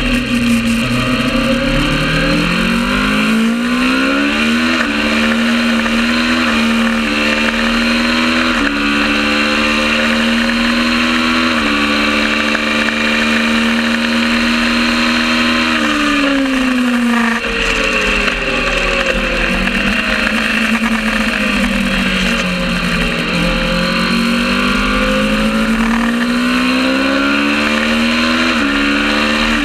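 Kawasaki ER650 parallel-twin race bike engine at full throttle, the revs stepping through the gears and holding high. About sixteen seconds in the revs drop away as the bike slows for a corner, then climb again with the engine pulling hard back up through the rev range.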